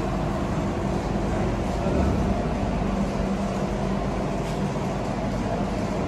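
A steady machine drone with a low rumble underneath, holding an even level throughout.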